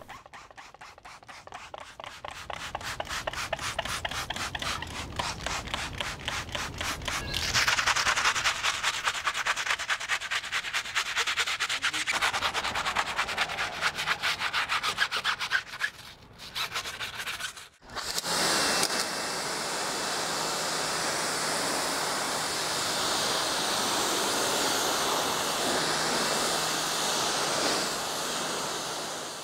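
Brush scrubbing a soapy truck tire sidewall in quick, rhythmic back-and-forth strokes, getting louder about a quarter of the way in. After a short break, a pressure washer jet hisses steadily as it rinses the tire, with a steady low hum underneath.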